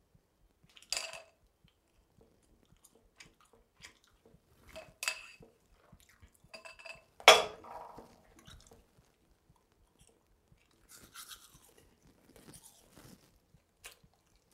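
A toothbrush and a glass are handled at a bathroom sink: a few separate knocks and clicks, the loudest a sharp ringing knock about seven seconds in. Short bursts of teeth brushing follow near the end.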